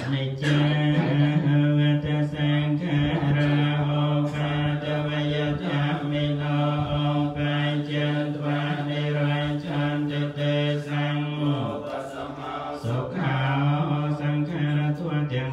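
Khmer Buddhist monks chanting in Pali on one nearly level pitch. The chant breaks off briefly about twelve seconds in, then goes on.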